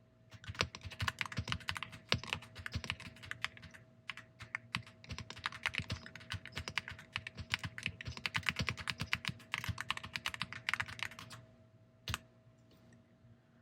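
Typing on an AULA F99 mechanical keyboard with gasket mounting and PBT keycaps, the soft "creamy" keystroke sound it is bought for: a fast, continuous run of keypresses with a short lull about four seconds in, stopping about eleven seconds in, then one more click a second later.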